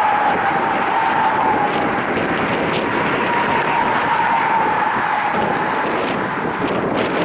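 Freight train hauled by diesel locomotives rolling slowly along a curve, with a steady high squeal over a constant rumble and wash of noise.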